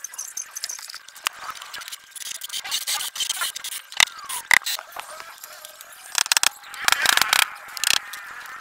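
Plywood shoe-rack panels being handled and fitted together: scraping in the first half, two sharp knocks about four seconds in, and a quick run of knocks and rattles near the end.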